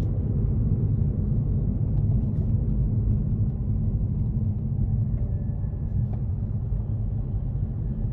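Steady low rumble of a car driving, heard from inside the cabin: engine and tyre road noise with no distinct events.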